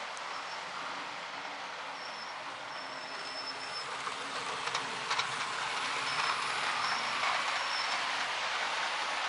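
OO gauge model train running on its track: a steady rushing whir of motor and wheels on rail that slowly grows louder, with brief high-pitched whines coming and going and a few sharp clicks about five seconds in.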